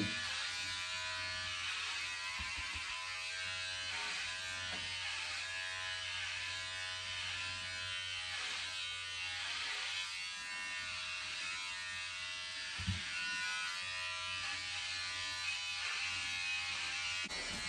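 Cordless electric hair clippers buzzing steadily as they cut through hair. The motor seems to die a bit whenever the blade touches the hair, which she suspects means it needs charging. A brief soft knock about two-thirds of the way through.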